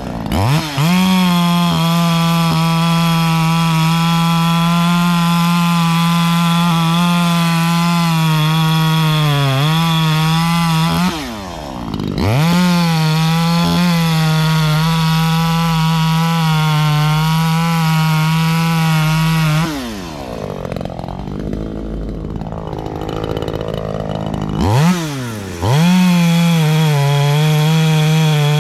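Echo CS-3510 two-stroke chainsaw held at full throttle while cutting into a small tree, at a steady high pitch that sags slightly under load. The engine drops back briefly about eleven seconds in and for about five seconds near twenty seconds, then revs up again.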